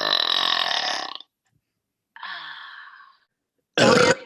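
A woman's deliberate, forced burps, three in a row: a long, loud burp lasting over a second, a quieter one about two seconds in, and a short, very loud one near the end.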